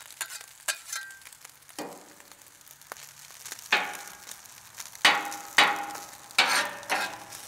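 Fried rice sizzling on a Camp Chef flat-top griddle while metal spatulas scrape and toss it across the steel plate. The sizzle is soft at first, then from about halfway there is a run of loud, ringing scrapes, about one every half second.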